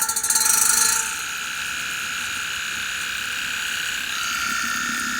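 Portable water flosser's pump running with a buzz. It is louder and rapidly pulsing for about the first second, then settles to a steadier buzz that shifts slightly in pitch about four seconds in.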